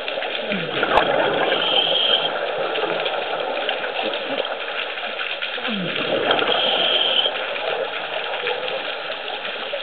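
Scuba diver breathing through a regulator underwater: twice, about five seconds apart, a gurgling rush of exhaled bubbles is followed by a short hiss of inhalation, over steady underwater noise.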